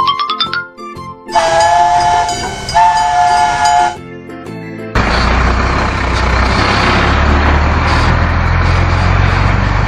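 A rising whistle-like glide, then a horn chord sounded in two long blasts. About five seconds in, a loud, steady, rumbling vehicle engine noise sets in.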